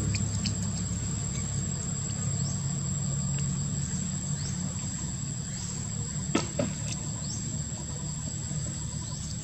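Outdoor ambience of a steady, high-pitched insect drone over a low hum, with a few short rising chirps and two sharp clicks about six and a half seconds in.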